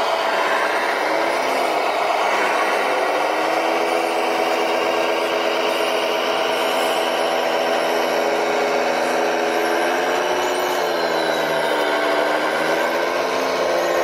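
Radio-controlled scale trucks driving: a steady mechanical hum made of several pitched tones, which dip in pitch and rise again near the end.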